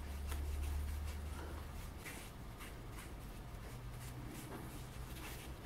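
Paper towel rubbing a finish into a small wooden handle: soft, irregular scuffing strokes. A low hum underneath stops about two seconds in.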